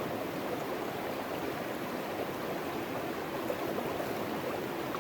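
Steady rush of river water flowing through and around a sluice box.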